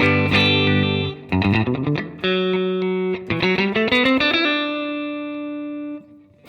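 Maybach Lester 59 electric guitar played through an amplifier to check the sound after setting the pickup height: strummed chords, then quick single-note runs with two held notes, the last ringing out and fading before the chords start again right at the end.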